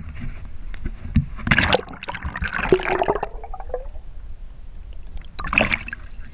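Water gurgling and splashing, heard from a camera held under the surface, in a long burst about a second and a half in and a shorter one near the end.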